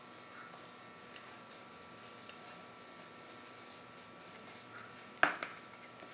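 Silicone spatula stirring condensed milk into desiccated coconut and icing sugar in a stainless steel bowl: faint, soft scraping and squishing. One sudden louder knock comes about five seconds in.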